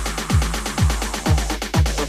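Electronic dance music with a steady four-on-the-floor kick drum, about two beats a second, and ticking hi-hats.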